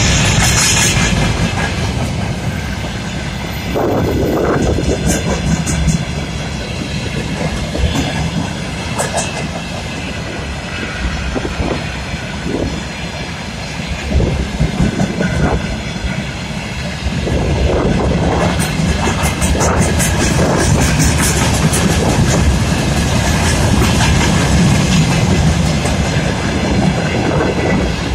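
Freight wagons of a mixed freight train rolling past close by: a continuous rumble of steel wheels on the rails, clattering over rail joints with scattered sharp metallic clicks. It grows louder a little over halfway through.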